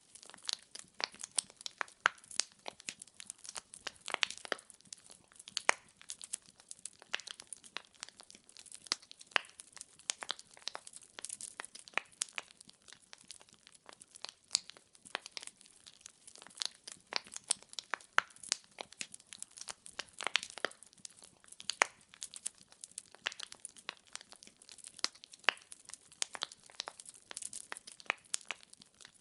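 Wood fire crackling: logs burning with many sharp, irregular pops and snaps over a soft hiss.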